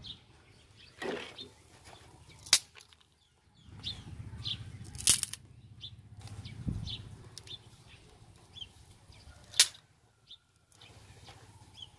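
Three sharp smacks a few seconds apart, a hand slapping the wet clay rendering of a brick stove. Small birds chirp briefly and repeatedly in the background.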